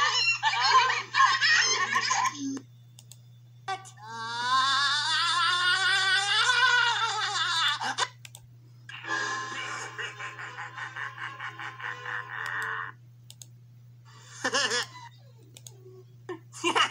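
Sound from cartoon videos playing through a computer's speakers, coming in separate snatches with short silences between them as the clips change. First come brief bursts of voices. Then a long wavering pitched sound rises and falls over about four seconds, followed by a steadier musical passage, with a steady low hum underneath.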